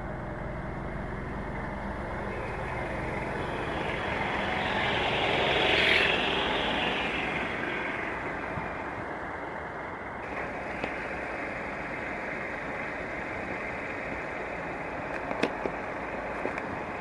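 Car engine and road noise: a low hum with a rushing sound that swells to its loudest about six seconds in and then dies down to a steady level. A few sharp clicks come near the end.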